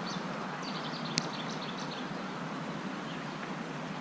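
Small songbirds chirping in short high notes, mostly in the first two seconds, over a steady rush of road-traffic noise. One sharp click about a second in.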